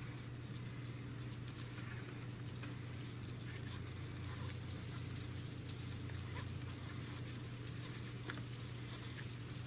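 Faint, scattered clicks and scrapes of a hand tool working out a small screw on an ATV's carburetor choke fitting, over a steady low hum.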